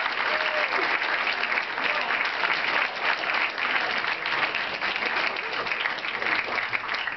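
A large theatre audience applauding: dense, steady clapping from many hands that thins slightly near the end.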